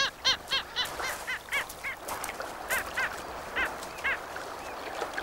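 A flock of birds calling: many short, arching calls in quick succession, thinning out after about two seconds.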